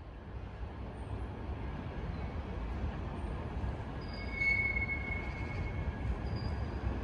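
Train of IC1 passenger carriages with a DSB class EB (Vectron) electric locomotive, running with a steady low rumble. A brief, faint high wheel squeal comes about four seconds in.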